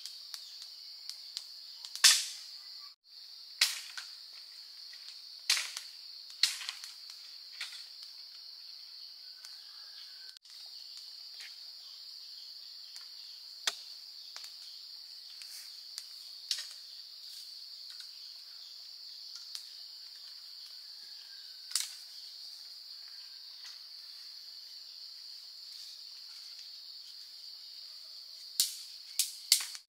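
Steady, high-pitched insect chorus, broken by sharp knocks at irregular intervals, the loudest about two seconds in and a quick pair near the end.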